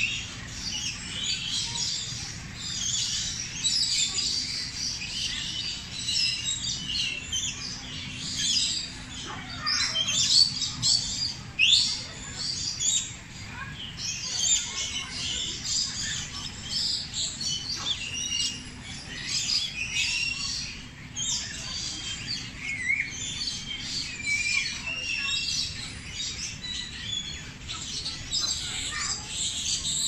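A chorus of many birds chirping and calling at once, short overlapping tweets and whistles, some sliding up or down in pitch.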